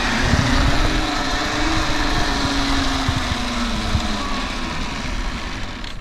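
Pulley trolley of a wooden seat swing rolling along a steel cable: a steady whirring whose pitch rises and then falls, with a low rumble underneath.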